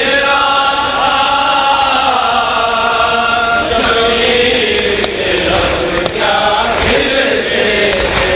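A group of voices chanting together in long, drawn-out notes that slowly rise and fall in pitch, with short breaks for breath.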